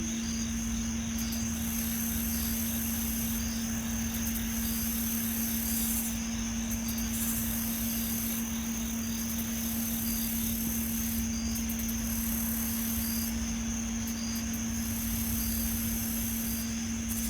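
A steady, unexplained 'nging' hum: a constant low tone with a constant high-pitched whine over it. Insects chirp through it, in short high pips about twice a second and in bursts of high buzzing that switch on and off every few seconds.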